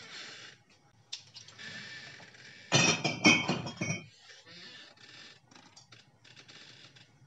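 Wet paper label being peeled and scraped off a glass wine bottle that has been boiled to loosen it, with scratchy rustling. About three seconds in comes a much louder clattering rustle lasting around a second, the loudest sound here.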